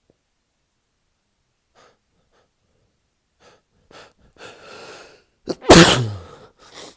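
A man with a cold catches his breath in a few short gasps and one longer inhale as a sneeze builds, then sneezes loudly once about six seconds in, followed by a short breath.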